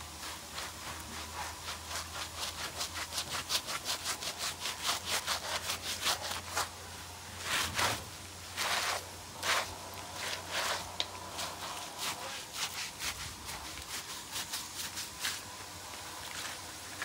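Scrub brush rubbing over the soapy, wet coat of a pinto foal during a bath: quick back-and-forth strokes, about four a second, with a few longer, louder strokes near the middle.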